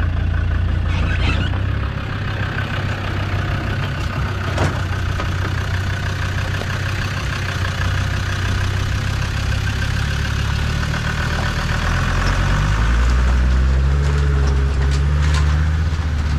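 Land Rover Td5 2.5-litre five-cylinder turbodiesel in a Series 1 running at low revs, its note rising and getting louder about twelve seconds in as the vehicle pulls away.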